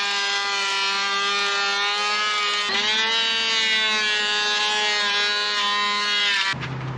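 Corded electric hand planer running while it shaves the underside of a new wooden rub rail: a steady high whine that dips in pitch and recovers about three seconds in, then cuts off just before the end.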